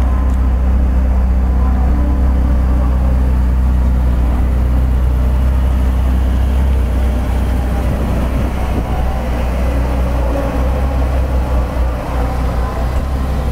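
Ferrari California's 4.3-litre V8 running at idle: a steady, deep exhaust note that wavers a little from about halfway through.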